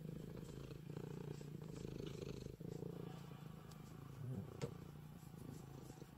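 Domestic cat purring steadily at close range while it is massaged, with a brief break in the purr about two and a half seconds in and a sharp click about four and a half seconds in.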